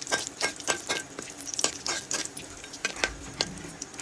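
Flat metal spatula scraping and clinking against a metal kadhai in quick, uneven strokes while stirring cumin seeds and bay leaves in hot oil, with a faint sizzle of the oil underneath.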